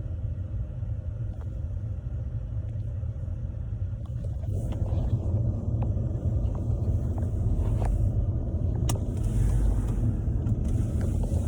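Car cabin rumble as the vehicle drives slowly in, with tyre and road noise on a snow- and ice-covered road. The noise grows louder about four and a half seconds in, with a few light clicks near the end.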